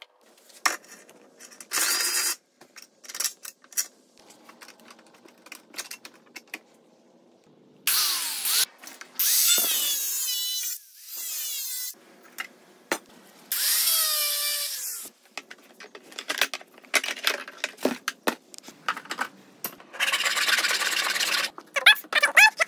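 Cordless power drill running in several bursts of one to two seconds, its speed rising and falling. Clicks and knocks of parts and tools being handled come between the bursts.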